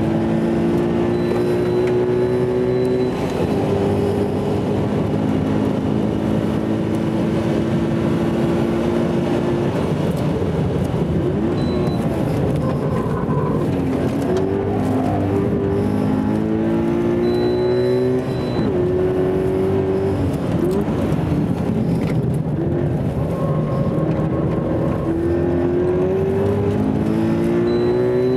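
A sports car's engine heard from inside the cabin at full throttle on a circuit lap. It revs up through the gears of a manual gearbox, its pitch climbing again and again with a short drop at each shift or lift, over steady road noise. A short high beep sounds near the top of several rev climbs.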